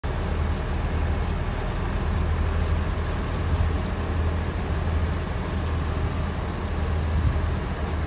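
Heavy dump truck's diesel engine running steadily, driving the hydraulic hoist as the tipper bed rises and sand slides out the back.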